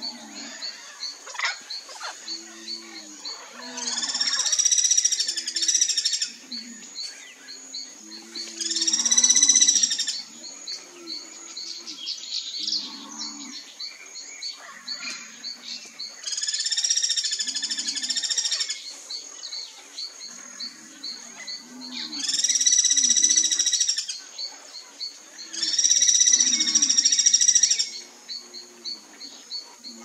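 Guira cuckoo giving loud, harsh calls, five in all, each about two seconds long and spaced a few seconds apart. A steady fast high ticking chirp runs underneath.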